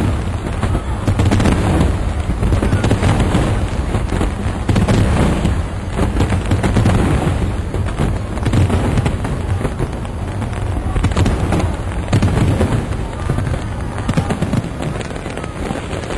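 Aerial fireworks shells bursting in a dense, continuous barrage of deep booms and crackles, one burst overlapping the next.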